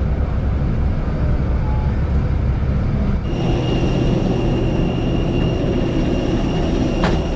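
Airliner ramp noise: a loud, steady low rumble, joined from about three seconds in by a steady high-pitched whine of aircraft turbine machinery beside the parked jet at its boarding door. A single sharp click near the end.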